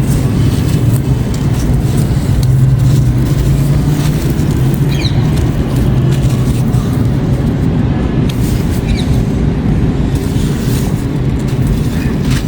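A steady low rumble like a running engine, with a faint hum, and two short high chirps about five and nine seconds in.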